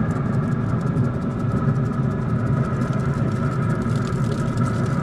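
A steady mechanical hum and rumble, like a motor running, with a few constant higher tones over it.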